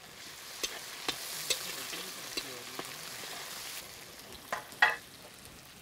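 Onions, garlic and ginger sizzling in hot oil in a large wok as they are stirred with a ladle, which scrapes and knocks against the pan several times. The sizzle dies down after about four seconds, and a louder knock comes about five seconds in.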